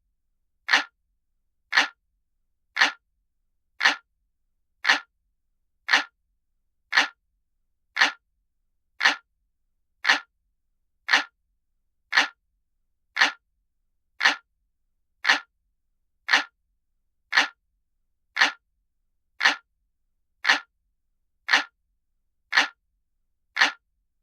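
Looped clock-ticking sound effect: a mechanical clock's tick, sharp and even, about one tick a second with silence between.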